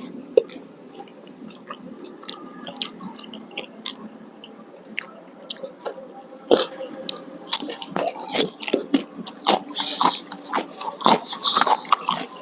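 Close-miked eating sounds: chewing of a curry, rice and raw-vegetable meal, with wet mouth clicks and smacks. They are sparse at first and come thicker and louder a little past halfway.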